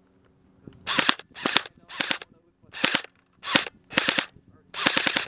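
Airsoft guns firing short automatic bursts, each a rapid string of sharp cracks. About seven bursts start about a second in and come roughly half a second apart.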